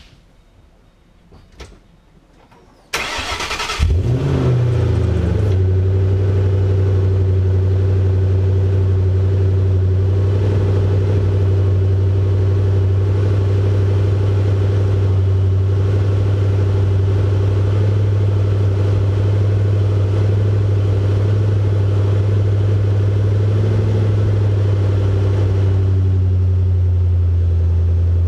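2008 Shelby GT500's supercharged 5.4-litre V8, breathing through a 3-inch Bassani cat-back exhaust, cranked by the starter about three seconds in and catching with a brief flare of revs. It then idles with a steady, low, even exhaust note.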